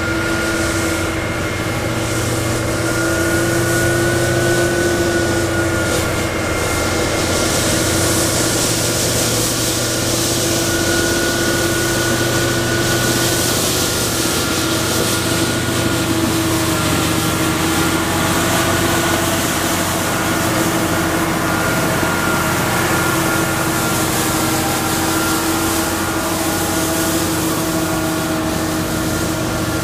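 Mercedes-Benz Unimog U400 diesel with its front rotary broom sweeping snow off tram tracks: steady running with a held whine, over a steady hiss of brushed snow.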